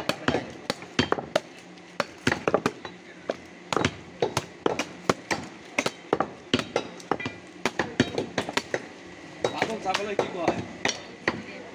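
Butcher's large knife cutting beef on a wooden log chopping block: irregular sharp knocks and chops, a few a second, as the blade strikes the meat and the block. Voices talk in the background, most clearly near the end.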